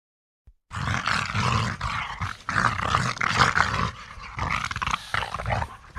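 King Kong roar sound effect: a rough, growling creature roar starting just under a second in and lasting about five seconds, easing off briefly partway through and breaking into shorter growls near the end.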